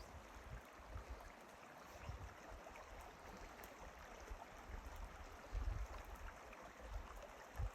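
Faint steady rush of a flowing mountain creek, with low gusts of wind buffeting the microphone, the strongest a little past the middle and just before the end.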